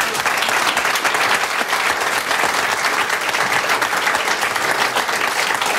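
A small audience clapping its hands in steady applause.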